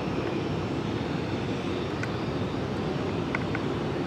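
Southwest Boeing 737 jet engines spooling up for the takeoff roll, a steady low noise heard across the airfield.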